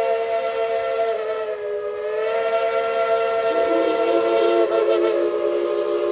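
Steam locomotive whistle blowing one long held blast, several tones sounding together as a chord. Its pitch sags and wavers partway through, and a lower note joins about halfway.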